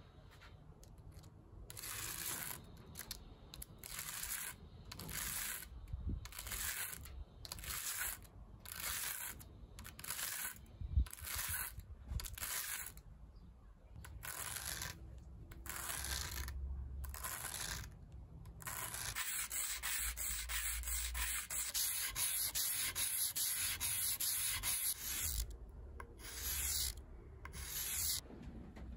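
A thin aluminium dog tag rubbed back and forth by hand on sandpaper, giving a gritty hiss. Separate strokes of a little over one a second at first, then unbroken rubbing for several seconds from about two-thirds in, then a few strokes more.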